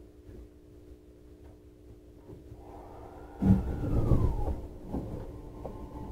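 Inside a JR Central 315 series electric train: a steady low hum of onboard equipment, then about three and a half seconds in a sudden loud thump and rumble, after which a steady whine and rumble continue.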